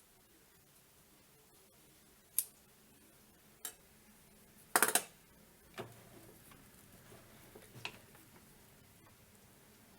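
A few sharp clicks and clinks of small metal tools and parts being handled at a stopped lathe. The loudest is a quick rattling cluster about five seconds in.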